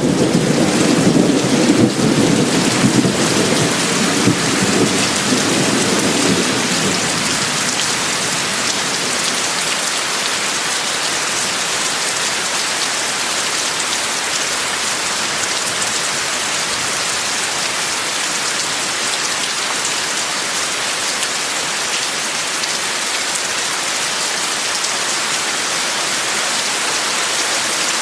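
Steady rain falling, an even hiss, with a low rumble of thunder that fades away over the first several seconds.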